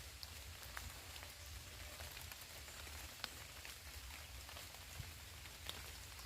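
Faint steady hiss of rainforest background, with a few sharp ticks scattered through it.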